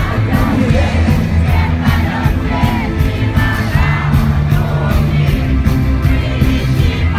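Live rock band playing with a male lead singer, over a steady drum beat and bass, recorded from within the arena audience with the crowd shouting along.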